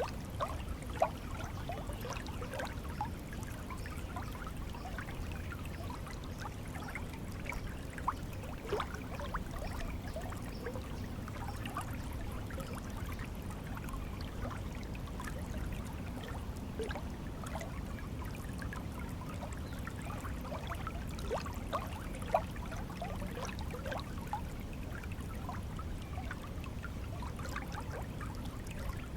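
Flowing stream water running steadily, with a low rumble under scattered bubbling and trickling.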